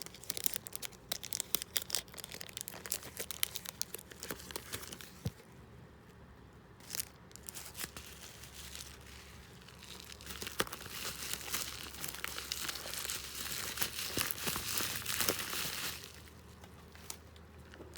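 Packaging being handled and crinkled: sharp crackles at first, a short lull, then a longer, denser stretch of crinkling and rustling in the second half.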